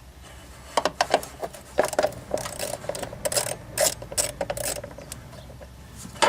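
Ratchet wrench clicking in uneven strokes as it backs out a 7 mm blower-motor mounting screw, ending with one sharp click near the end.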